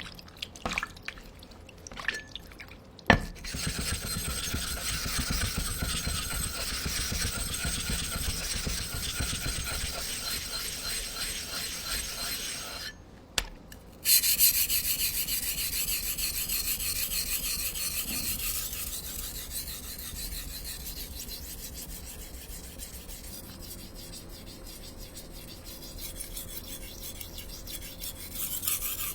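A knife blade being sharpened, rubbed back and forth on an abrasive sharpening stone in quick, even rasping strokes. A few clicks and a sharp knock come first, then the strokes run, stop briefly with a click a little before halfway, and start again louder before slowly growing fainter.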